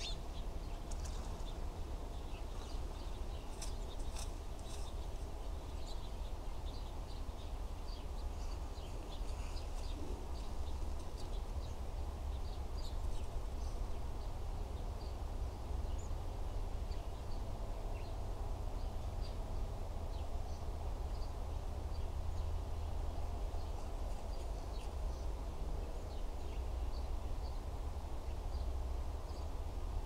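Small birds chirping: short, high calls scattered throughout, over a steady low rumble.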